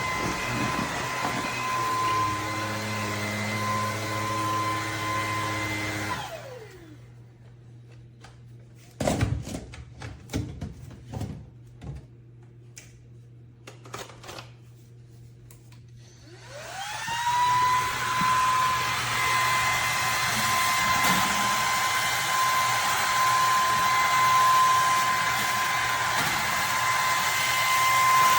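Bissell PowerClean cordless vacuum motor running with a steady high whine. About six seconds in it is switched off and the whine falls away. After some ten seconds of scattered clicks and knocks, it is switched back on and the whine rises back up to speed.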